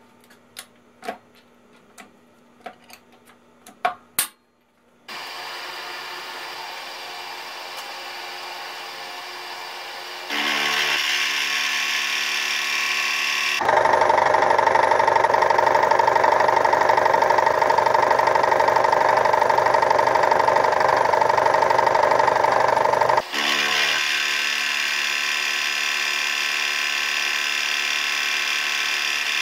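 Clicks and knocks as a large 2-flute end mill is fitted into the collet of a Tree vertical milling machine. The spindle starts about five seconds in and runs steadily. The end mill then hogs through an aluminum block, loudest and harshest for about ten seconds in the middle before settling back to a steadier cut.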